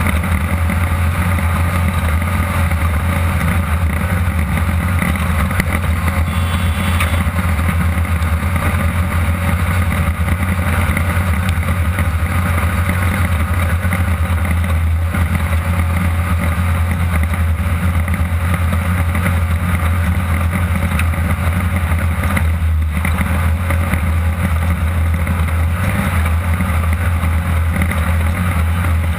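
Class 2-1600 off-road race buggy's 1600 cc air-cooled VW flat-four running hard at a steady, loud drone, heard from inside the cockpit along with dense wind and road noise.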